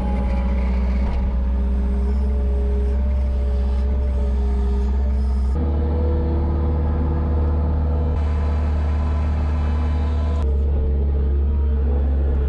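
Skid steer loader's diesel engine running steadily under load, heard from inside the cab, while a bedding spreader attachment throws bedding out. It is a loud, even drone whose tone steps slightly twice.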